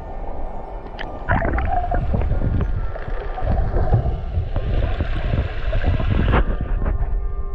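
Muffled rush and low rumble of seawater moving around a submerged camera, swelling about a second in and cutting off abruptly near the end.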